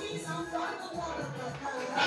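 Recorded background music playing over a restaurant's sound system.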